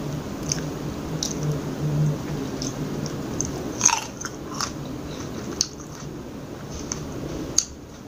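Close-miked chewing of a crisp seedless green grape: wet mouth sounds broken by several sharp crunches, the loudest about four seconds in and another near the end.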